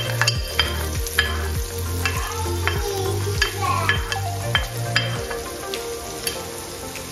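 Chopped red onion and garlic sizzling as they land in hot cooking oil in a frying pan.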